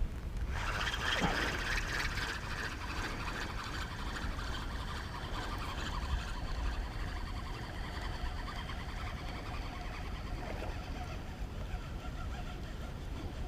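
A distant motor passing by, heard as a high, whining engine note that is strongest in the first few seconds and fades slowly away over about ten seconds.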